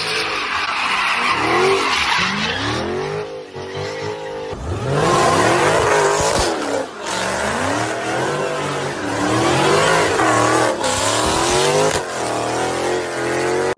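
Car engines revving hard, rising and falling in pitch again and again, with tyres squealing and skidding through burnouts and donuts.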